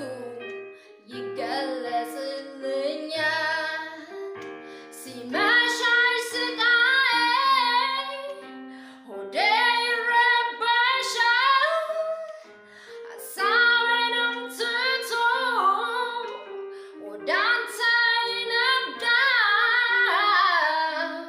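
A woman singing a melody in phrases a few seconds long, with wavering held notes, over a steady instrumental backing.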